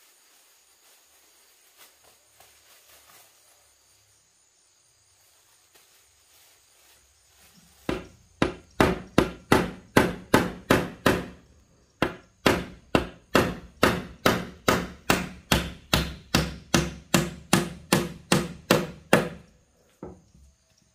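Quiet at first, then about eight seconds in a long run of sharp, even blows on wood begins, about three a second. It breaks off briefly once and stops shortly before the end.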